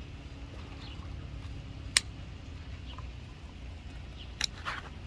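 Steady low rumble with a faint hum, broken by one sharp click about two seconds in and a quick run of clicks near the end, while a baitcasting reel is worked against a hooked fish.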